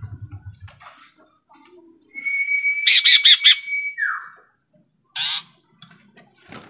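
Sirtu songbird calling: a held whistle with a quick run of four sharp, loud notes over it, ending in a falling note, then a single short harsh call about a second later.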